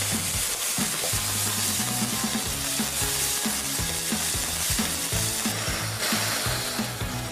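Pork belly skewers sizzling steadily on a hot iron griddle, brushed with sauce and dusted with dry seasoning.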